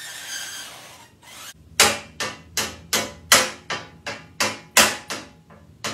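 A wooden spoon beating a metal cookie sheet: about a dozen sharp, ringing strikes at roughly three a second, starting about two seconds in.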